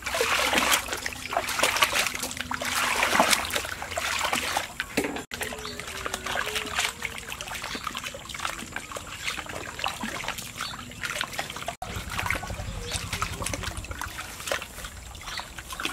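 Water splashing and trickling as fresh noodles are rinsed in a plastic basket dunked in a large concrete water jar. Water is poured over them from a scoop at the start, then the noodles are swished and squeezed by hand under the water in a run of small irregular splashes.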